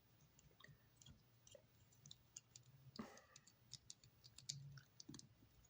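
Faint, scattered clicks and light rattling of plastic Lego bricks being handled and pressed together.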